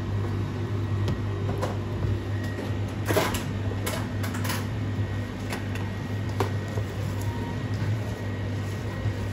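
A few clinks and knocks of a stainless steel mixing bowl being handled and set down on a steel counter, most of them about three to four and a half seconds in, over a steady low mechanical hum.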